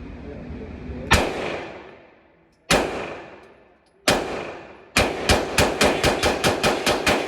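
Glock 43x 9mm subcompact pistol firing: four separate shots a second or so apart, then a rapid string of about ten shots at four to five a second. Each shot leaves a short ringing tail.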